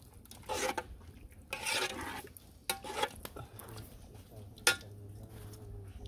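A spoon stirring and scraping through thick vegetable soup in a metal cooking pot, in a few short strokes, with a sharp metallic knock against the pot about three-quarters of the way through.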